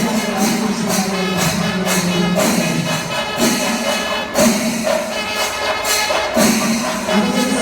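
Music with rapid, dense percussion strokes and jingling metallic cymbals over a held melodic line.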